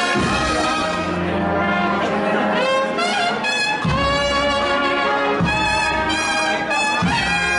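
Brass band playing a Holy Week processional march, with held brass chords and deep drum strokes every second or two.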